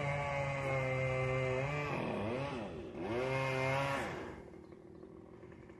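Chainsaw running at high revs, its pitch swooping down and back up twice as the throttle is eased and reopened about two and three seconds in, then dropping back and quietening near the end.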